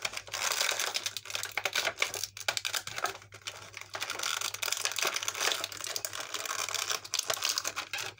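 Plastic toy packaging crinkling and crackling in irregular bursts as an action figure is worked out of its pack by hand.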